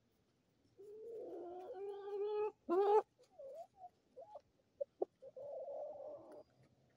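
Chickens vocalizing: a long, steady drawn-out hen call starting about a second in, then a louder short rising squawk, a few brief clucks, and a rougher call near the end.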